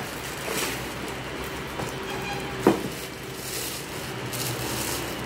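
Cardboard box and its packing rustling as a stainless steel container is unpacked and handled, with one sharp knock about two and a half seconds in.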